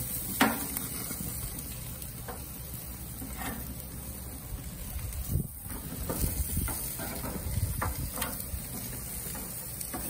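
Beef short ribs sizzling on a gas grill's grate, with metal tongs clicking and scraping several times as the pieces are turned.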